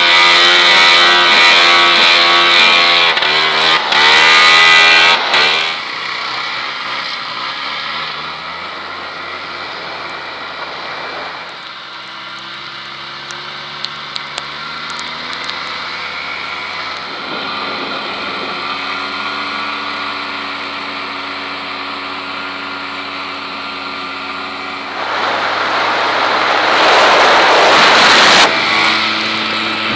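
Snowmobile engines: the riding sled's engine runs hard for the first five or six seconds, then drops to a low running putter while another sled's engine slides in pitch in the middle; near the end it opens up again, with a rush of wind noise over the engine.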